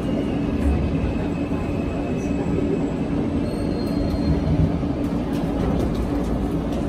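New York subway R160A car rumbling as the train slows to a stop at a station platform, heard from inside the car. A brief faint high wheel squeal comes a little past halfway, and a few sharp clicks follow near the end.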